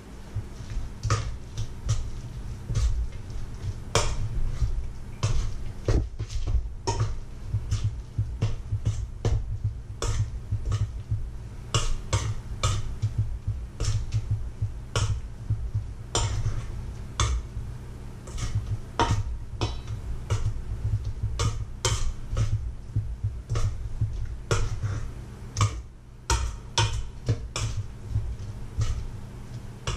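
Hand kneading and squeezing a mashed potato mixture in a stainless steel bowl, the bowl knocking and shifting on a wooden board. The clicks and knocks come irregularly, several a second, over a low rumble of handling.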